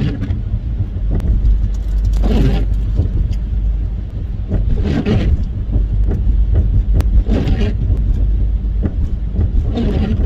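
Steady low rumble of road and engine noise inside a moving van's cabin, with windshield wipers swishing about every two and a half seconds in a snowstorm.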